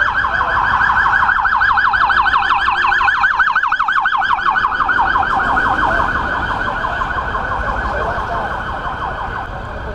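Police pickup truck's siren on a rapid yelp, about seven sweeps a second, loud as the vehicle passes close by and then fading as it drives away.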